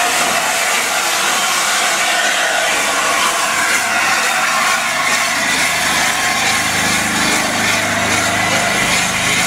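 LNER A4 Pacific steam locomotive 60007 'Sir Nigel Gresley' moving slowly past at close range, giving off a loud, steady hiss of steam, with a low hum joining in past the middle.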